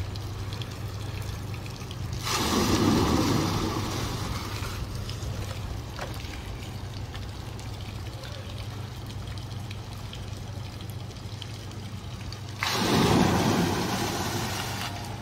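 Kinetic bucket fountain's metal buckets tipping and dumping their water into the pool, twice: a sudden rush of splashing water a couple of seconds in and again near the end, each fading over a couple of seconds, over steady running water and a low hum.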